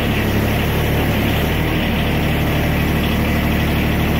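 John Deere 1023E compact tractor's three-cylinder diesel engine running steadily just after a cold start, heard inside a shed.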